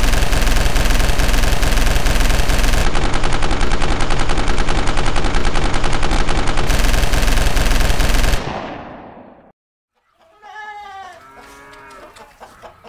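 Sustained automatic gunfire, a rapid unbroken stream of shots for about eight seconds that then trails off. After a brief silence, a voice gives a drawn-out, wavering cry.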